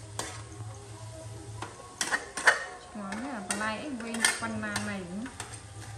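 Metal spatula stirring and scraping stir-fried vegetables in a steel wok, with sharp clinks of metal on metal. About halfway through, a wavering pitched tone joins in for about two seconds.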